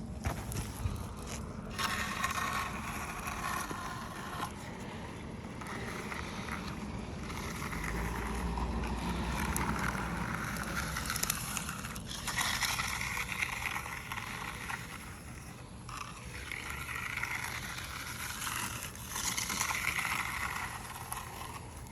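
Repeated scraping of tools working concrete, in strokes a few seconds long, with a low hum beneath for a few seconds in the middle.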